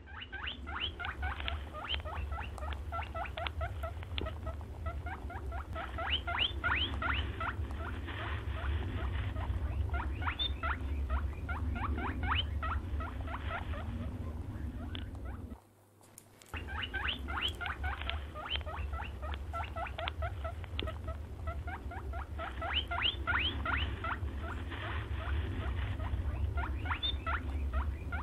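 A hare squeaking in quick runs of short, high, rising and falling notes over a steady low hum. The squeaking stops for about a second midway, then resumes.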